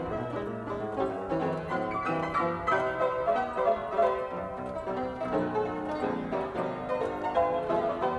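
Instrumental background music of quick, short notes on piano and plucked strings.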